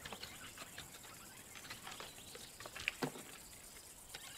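Lion's claws scratching and scraping on tree bark as it climbs the trunk: faint, scattered scratches and knocks, the loudest about three seconds in.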